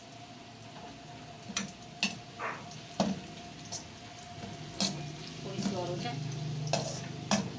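Sliced onions sizzling as they fry in oil in a steel karahi, just turning golden. A metal slotted spoon stirs them and knocks against the pan several times.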